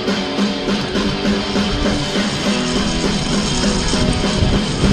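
Rock music soundtrack led by guitar, with the low end filling in after the first second.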